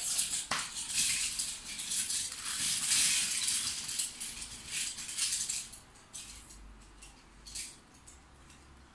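Die-cast toy cars clinking and rattling against each other as a hand rummages through a pile of them. The clatter is busy for about five seconds, then thins to a few scattered clicks.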